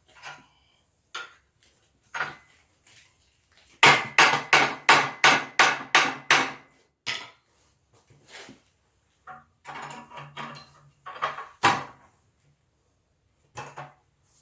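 Blacksmith's hammer striking hot iron on an anvil. A few single blows come first, then a fast run of about ten heavy blows at roughly three a second, then scattered lighter blows with one more heavy strike near the end.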